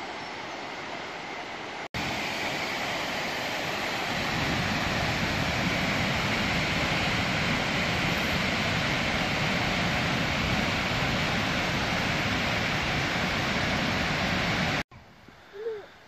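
Steady rush of a fast-flowing stream in spate, one even wash of water noise. It drops out for an instant about two seconds in, comes back louder, and cuts off abruptly near the end.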